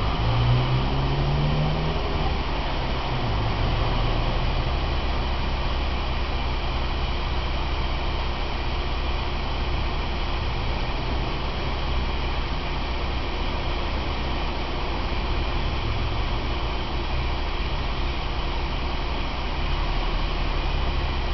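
Car engine idling, a steady low hum heard from inside the cabin, with a brief rising engine note in the first couple of seconds.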